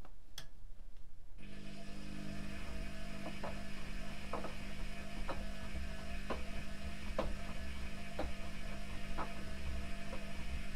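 Privileg Classic 30612 front-loading washing machine in its wash phase: after a click, the drum motor starts about a second and a half in and turns the drum with a steady hum. Short knocks come about once a second as the wet laundry tumbles.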